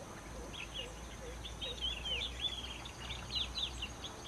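Yellow-eyed babbler singing: a lively run of short quick notes and slurred whistles, some of them descending, busiest in the second half. Under it, a low soft note repeats about two or three times a second, over a steady high tone.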